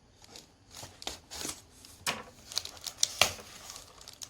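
Plastic packaging and figure parts being handled during an unboxing: irregular crinkles and small clicks, with the sharpest click about three seconds in.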